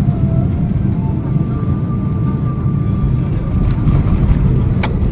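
Cabin noise of a Boeing 777-300 during its landing run at high speed: a loud, steady low rumble of engines, airflow and runway. A faint steady whine runs under it, and there is one sharp click near the end.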